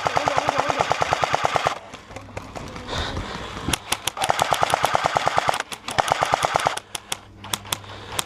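Airsoft electric rifle firing on full auto: a rapid, even stream of shots with the gearbox's whine, one long burst stopping about two seconds in and another from about four seconds to nearly seven, then scattered shots near the end.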